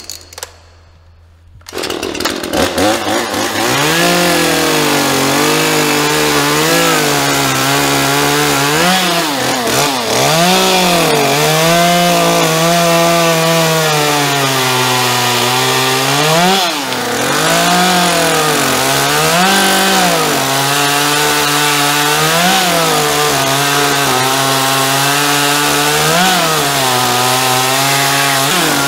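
Chainsaw cutting into a tamarind log: it comes in suddenly about two seconds in, then runs loud and near full throttle, its engine pitch dipping and recovering every second or two as the chain bites into the wood.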